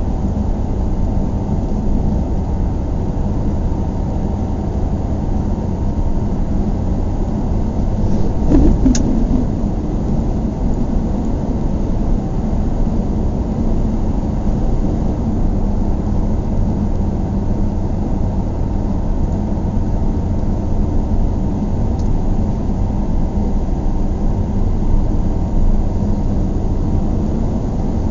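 Car driving in city traffic, heard from inside the cabin: a steady low engine and road rumble, with a brief louder bump and a sharp click about nine seconds in.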